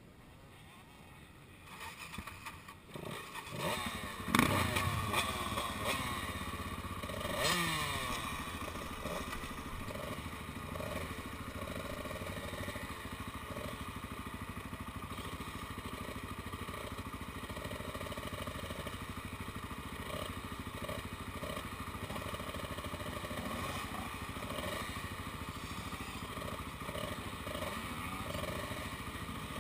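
A KTM motocross bike's engine catches about four seconds in, with a rev that falls away. It revs once more a few seconds later, then idles steadily.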